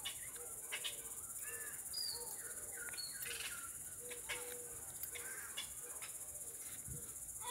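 Rural ambience: a steady high-pitched buzz of insects with birds chirping over it in many short calls and brief gliding notes, and a few faint clicks.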